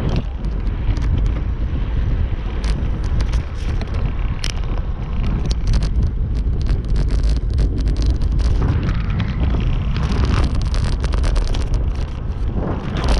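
Wind buffeting the microphone of a handlebar-mounted camera on a road bike riding at speed, a loud steady rumble mixed with tyre noise on asphalt. Frequent short clicks and rattles run through it.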